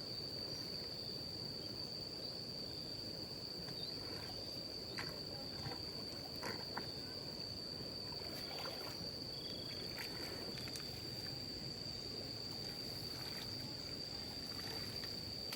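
A steady high-pitched insect drone, like crickets or cicadas, held on one pitch over a low rushing noise, with a few faint clicks.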